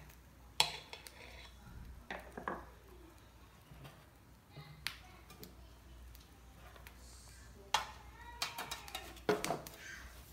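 Tin cans clinking and knocking as they are handled and set on a wooden tabletop: a few single knocks, then a quick cluster of them near the end.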